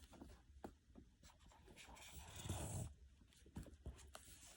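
Faint rustling and scraping of a cardboard box being handled and opened, with a few light taps. The rustle swells briefly in the middle.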